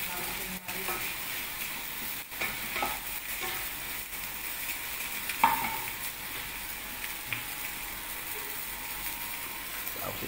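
Sautéed tomato, onion and chicken sizzling steadily in a stainless frying pan while a wooden spatula stirs and scrapes, with light clicks and one sharp knock about five and a half seconds in.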